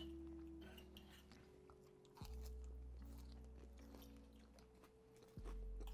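Faint lo-fi background music: held bass notes and soft chords that change every few seconds. Quiet chewing of a mouthful of food underneath.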